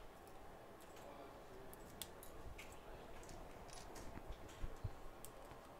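Faint, scattered clicks and taps of small tools and parts being handled while an iPhone 6 is taken apart, with a soft low knock a little before the end.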